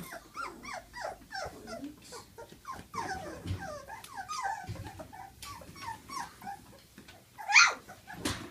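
Young puppies whimpering and yipping in a quick string of short, falling squeaks, with one louder, sharper cry near the end.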